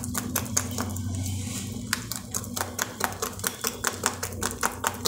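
Thick gram-flour (besan) batter being beaten by hand in a steel bowl: a quick run of wet slaps and clicks, about four or five strokes a second. This is the sound the batter should make once baking soda is in and air is being beaten into it, so the bajji puff up well.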